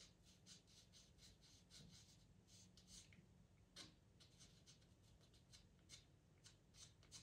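Faint scratching of a pastel pencil drawing short, quick strokes on Pastelmat paper, about three strokes a second at first, then more spaced out, with one firmer stroke about four seconds in.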